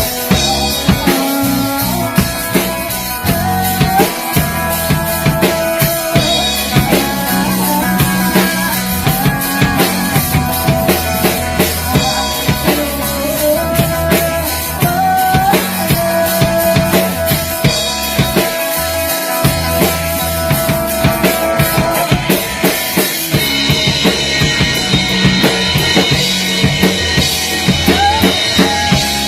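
A band's song recording: a drum kit keeps a steady beat with kick, snare and rimshots under a sustained melody line that slides between notes. The arrangement gets fuller and brighter about six seconds before the end.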